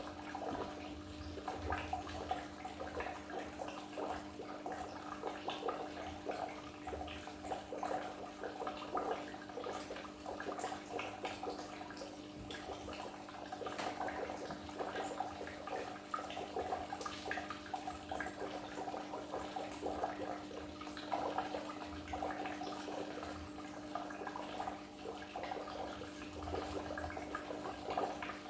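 Water in a goldfish aquarium bubbling and splashing continuously, with a steady low hum underneath.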